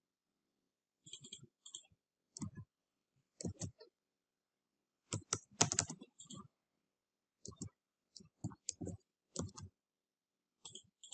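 Computer mouse clicks and keyboard key presses, coming irregularly in short clusters, with gaps of silence between them.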